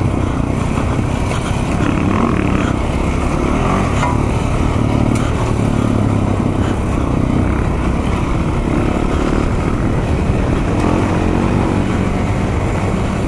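KTM single-cylinder off-road motorcycle engine running at an even pace on a dirt trail, its note steady throughout with no big revs or shifts.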